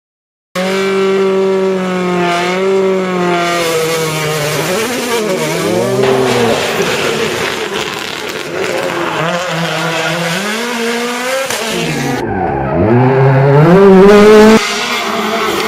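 Rally cars at full stage pace: engines revving hard, pitch climbing through the gears and dropping sharply on the downshifts, with some tyre squeal. The sound cuts abruptly twice in the last few seconds, and it is loudest just before the second cut.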